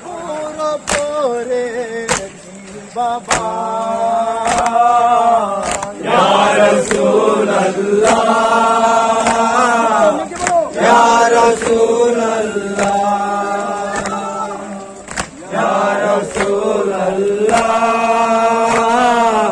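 Men chanting a noha (mourning lament) together, with a steady beat of sharp hand strikes, likely chest-beating (matam), a little under two a second.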